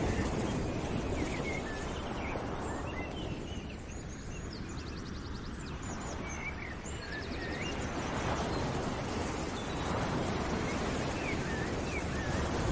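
Outdoor ambience: birds chirping and trilling over a steady rushing background noise that swells and eases.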